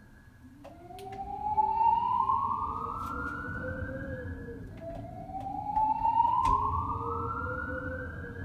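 Building emergency alarm sounding a slow whoop tone, rising in pitch over about four seconds and starting again, twice. Under it there is a low rumble of hurricane wind, with a few sharp knocks from the stairwell door shaking in the gusts.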